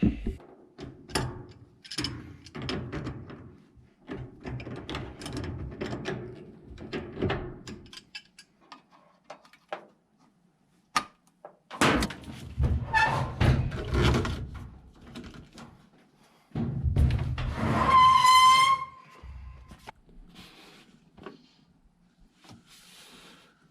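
Clattering, knocks and thuds of work on a washing machine being put back together, with a short high squeak about eighteen seconds in.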